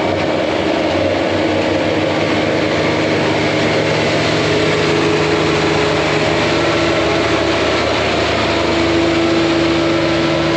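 Tractor engine running steadily, likely pulling a hay baler. A steady higher tone joins in about halfway through.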